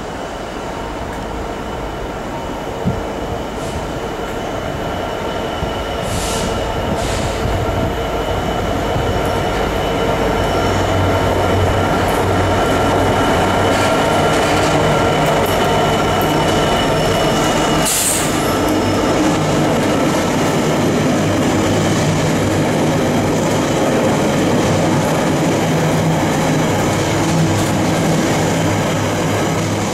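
Class 66 diesel freight locomotive approaching and passing under power with an intermodal container train, its engine drone getting louder over the first ten seconds or so and then holding steady. The rumble and clatter of the container wagons on the rails run beneath it, with a few brief hissing or squealing sounds.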